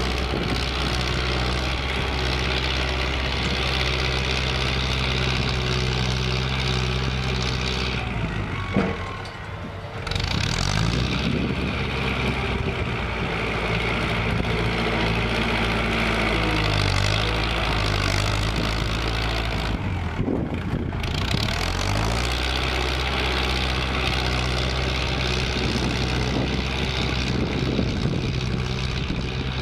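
Kubota tractor's diesel engine running steadily as it pushes soil with a front dozer blade. Its note sags and recovers a couple of times as the load changes.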